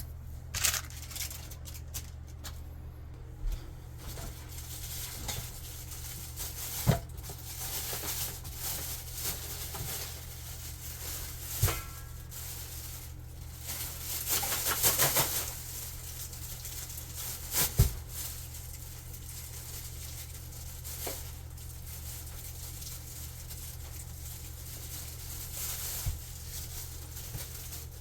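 Scattered clicks, knocks and rustling of things being handled, with a longer rustle about fifteen seconds in, over a steady low hum.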